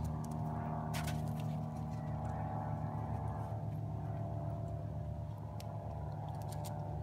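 A boat engine drones steadily at a constant speed, a held hum with several even tones. A few sharp clicks cut in about a second in and again near the end.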